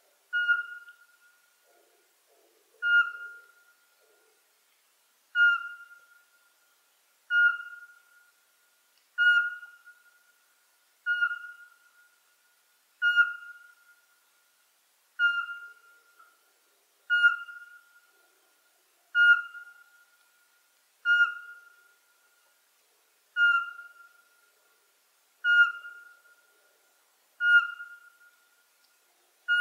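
Eurasian pygmy owl singing: a monotonous series of short, clear whistled notes, one about every two seconds, some fifteen in a row.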